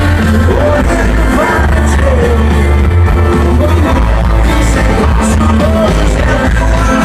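Live rock band playing at full volume, with a heavy, booming bass under guitars and drums.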